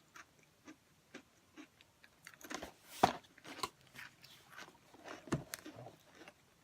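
Close-up chewing and crunching of thin, crispy Townhouse Flipsides pretzel crackers: a string of small crunching clicks, growing louder and busier in the middle, with a sharp crack about three seconds in.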